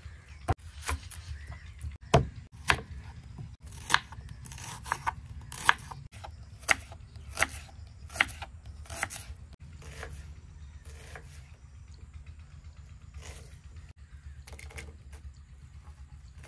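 Knife chopping onions: sharp, irregular cuts about one a second, thinning out after about ten seconds, over a steady low hum.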